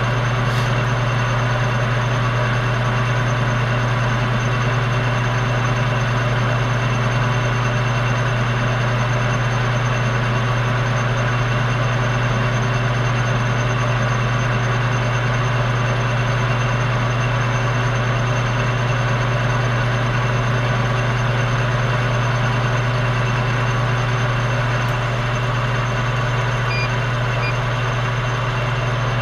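Metal lathe running with a steady low hum, its chuck spinning while the cutting tool turns down a bar of steel.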